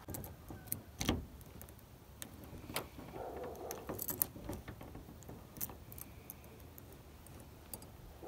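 A bunch of car keys jingling, with scattered light clicks as a key is fitted into a car door lock.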